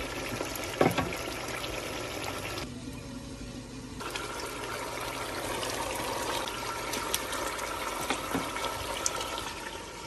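A pot of beef haleem simmering and bubbling on the stove, with a sharp knock about a second in, likely the wooden spoon against the pot.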